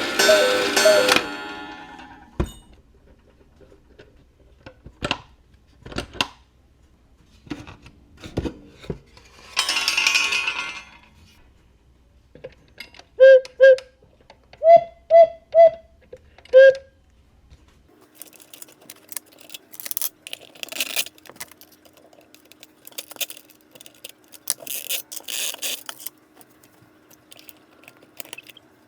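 Black Forest cuckoo clock: a music-box tune ends, then scattered clicks of the movement. Next come six short whistle-pipe notes from the cuckoo's bellows at two pitches, the loudest sounds here, followed by a stretch of small metallic clatter and handling over a faint steady hum.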